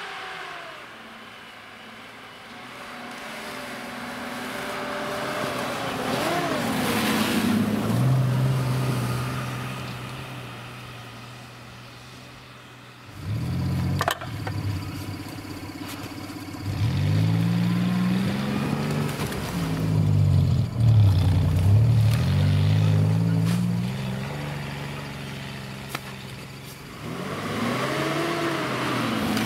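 Off-road SUV engines (Mitsubishi Pajero Sport and Toyota 4Runner) revving up and down as the trucks plough through deep snow, their pitch rising and falling with the throttle. A click is followed by a sudden jump in loudness about halfway through, then several hard revs.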